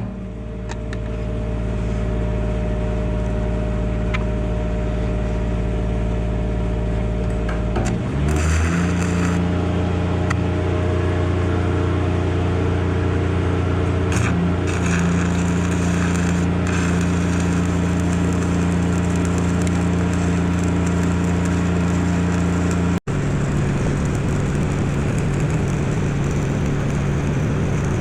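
An engine running steadily, most likely the engine-driven welder's power unit, which speeds up about eight seconds in and holds the higher speed, as such welders do when the arc is struck and they come off idle.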